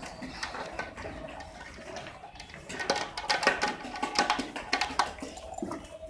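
Cow being milked by hand, milk squirting into a pail in a quick run of spurts that gets much louder about halfway through.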